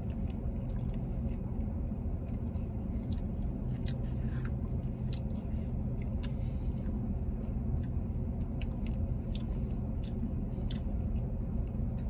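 A person chewing and eating a Dairy Queen Blizzard with cake pieces in it: scattered small wet mouth clicks and smacks, over a steady low hum in a car cabin.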